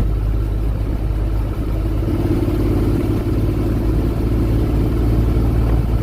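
Honda Forza 750 motorcycle's parallel-twin engine running steadily at a 60 km/h cruise, heard as a constant low rumble with riding noise. A humming tone comes in about two seconds in and fades out a couple of seconds later.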